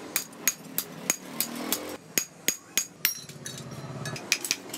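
Hand hammer tapping thin sheet metal against a heavy steel block, about three strikes a second at an uneven pace, each with a short metallic ring, as the metal is shaped into a stove collar.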